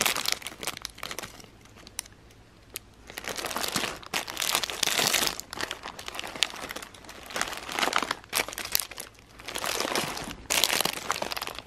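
Clear plastic bags around squishy toys crinkling as a hand rummages through a box of them, in uneven bursts with a quieter stretch about two seconds in.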